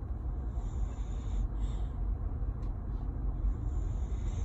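Steady low rumble of a car's engine and road noise heard inside the cabin, with a soft hiss that comes and goes in stretches of about a second.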